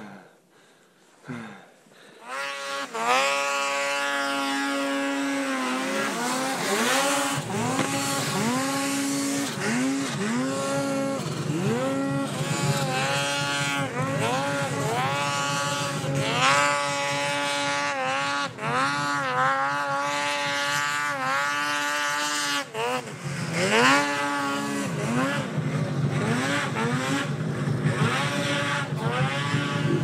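Two-stroke mountain snowmobile engine revving hard in deep powder. It rises and falls in pitch every second or two with the throttle, after a quiet start about two seconds in.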